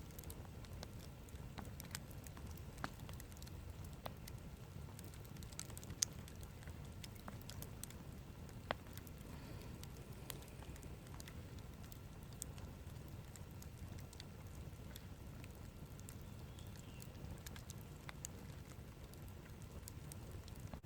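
Wood campfire burning, with scattered sharp crackles and pops, a few of them louder, over a low steady rumble.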